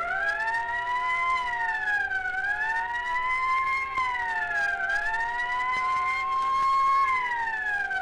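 Wailing siren sound effect from a 1930s radio crime drama, played from an old scratchy record. Its pitch slowly climbs and falls about three times.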